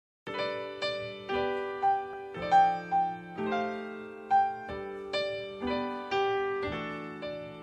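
Solo piano playing a slow jazz ballad introduction: chords and melody notes struck one after another, each ringing and fading, starting suddenly after silence about a quarter second in.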